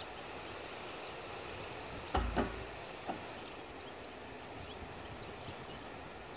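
Empty plastic barrel dropped from horseback onto arena dirt: two hollow knocks about two seconds in, a quarter second apart with a short low boom, then a lighter knock about a second later.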